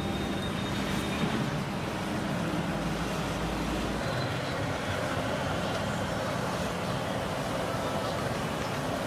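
Chicken pieces deep-frying in hot oil in a large iron kadai: a steady sizzle, with road traffic noise behind it.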